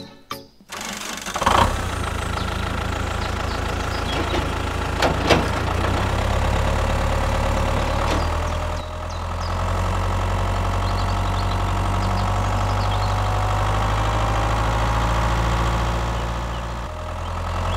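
Tractor engine starting up about a second and a half in, then running steadily at idle, with a few sharp clicks in the first half.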